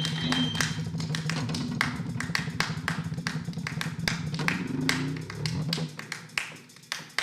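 Free-improvised experimental percussion: a rapid, uneven run of sharp taps over low sustained tones. The low tones fade out about six seconds in, and the taps thin out after that.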